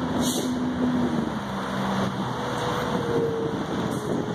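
Road traffic noise: a steady rumble of vehicles with engine tones that hold and slowly drop in pitch, first a lower one and then a higher one about halfway through.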